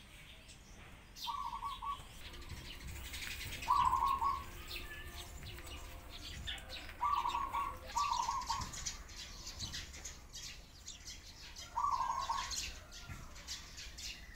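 Sparrows chirping busily, with five short buzzy bird calls standing out above them and doves cooing softly beneath.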